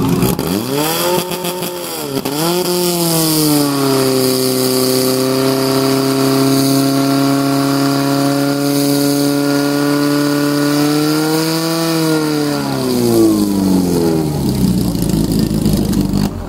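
Portable fire pump's petrol engine run at full throttle while it drives water into the hoses. The revs climb, dip sharply about two seconds in, then hold steady and high before falling away after about twelve seconds.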